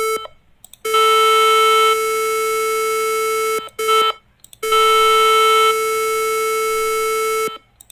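Synthesized square-wave test tone at about 440 Hz, a steady buzzy, metallic-sounding tone generated with Adobe Audition's Generate Tone. It plays as two holds of about three seconds each, with a brief blip between them and short silences in the gaps.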